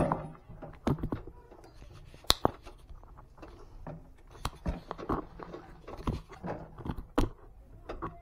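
Irregular light metallic clicks and scrapes of a nut being worked by hand onto the bolt of a Maruti 800's front suspension arm.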